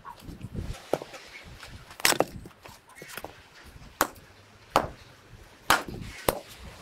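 An axe splitting firewood logs on a wooden chopping block: a series of sharp chops, roughly one a second, with quieter knocks between them.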